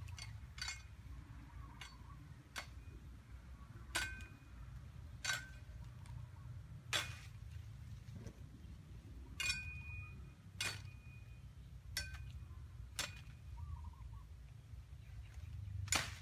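Machete chopping at a bamboo stem: about a dozen sharp, irregular chops, a second or more apart, some ringing briefly. A steady low rumble runs underneath.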